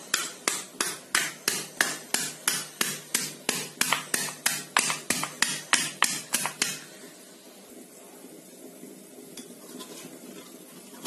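Wooden pestle pounding chopped banana stem in a small stone mortar: a steady run of strikes, about three a second, that stops about seven seconds in. After that there is only faint rubbing as a hand works the crushed stem in the mortar.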